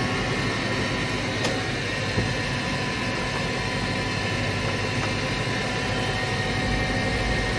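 KAESER SX4T 3 kW rotary screw air compressor running steadily under load, pumping up its air receiver toward the 8-bar cut-out: an even mechanical hum and rush with a few steady whining tones.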